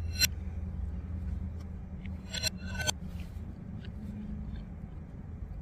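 Mouth sounds of someone eating roast chicken: a few sharp smacks from chewing, one just after the start and a pair about two and a half seconds in, over a steady low hum.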